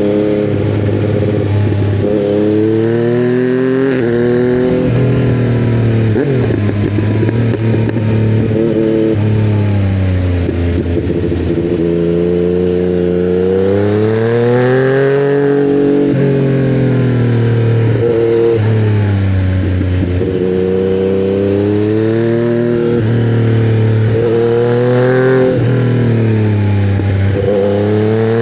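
2020 Yamaha MT-09's three-cylinder engine running through custom headers and a titanium Akrapovic silencer, its pitch rising and falling over and over as the bike accelerates, shifts and slows.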